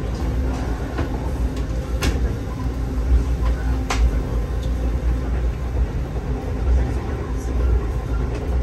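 Low, steady rumble of an Amtrak passenger car rolling along the track, heard from inside the coach, with a few short sharp clicks, the clearest about two and four seconds in.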